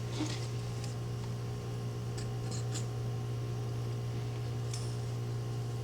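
A few faint clicks and rustles of no-freeze grease being applied to a padlock by hand, over a steady low hum.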